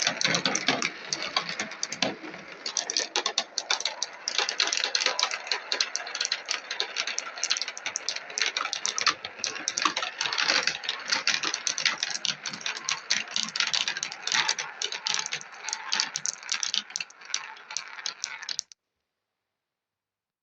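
A pack of 16mm marbles rolling and clattering down a marble run, a dense rattle of many small clicks that cuts off suddenly near the end.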